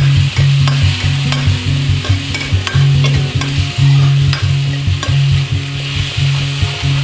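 Food sizzling in hot mustard oil in a pan while a spoon stirs it, with frequent short ticks of the spoon against the pan.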